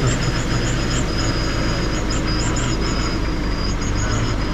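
Safari four-wheel-drive vehicle's engine running steadily. A high, repeated chirping goes on over it.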